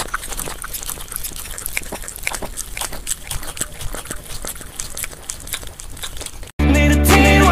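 Puppy eating wet food from a bowl: quick, irregular wet smacking and chewing clicks. Music cuts in abruptly near the end.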